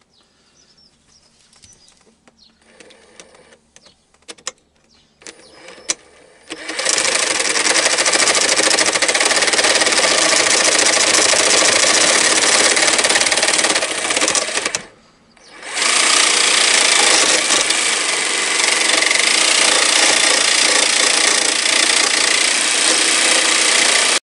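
A few light clicks and knocks of handling, then a small electric power tool runs loud and steady from about seven seconds in. It stops briefly just past the middle, starts again and runs until it cuts off abruptly.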